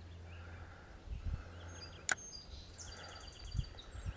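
Quiet outdoor riverbank ambience with birds chirping, including a quick run of short high chirps near the end. There is a single sharp click about two seconds in and a couple of low bumps.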